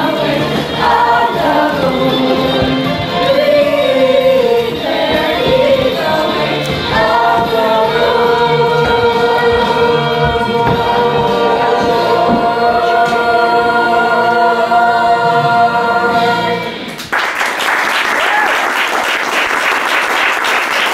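A youth musical-theatre cast singing together in chorus, ending on a long held chord, followed by audience applause from about 17 seconds in.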